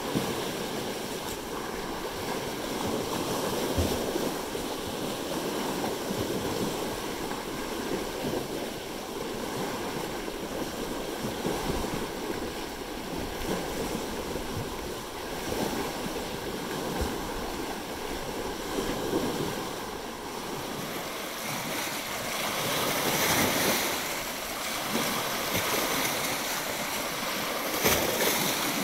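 Small lake waves lapping and washing over flat rock ledges at the water's edge. The wash is steady, swelling louder now and then, most about two-thirds of the way through.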